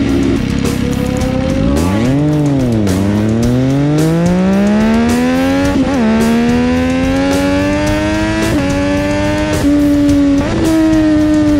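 Sport motorcycle engine pulling hard: the revs swell and drop back about two seconds in, then climb steadily through the gears, with a quick dip at each upshift about six, eight and a half and ten seconds in. Music plays underneath.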